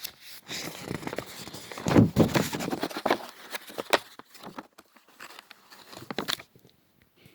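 Sheets of photocopied paper being handled and leafed through: irregular rustling and light clicks, loudest about two seconds in, dying away near the end.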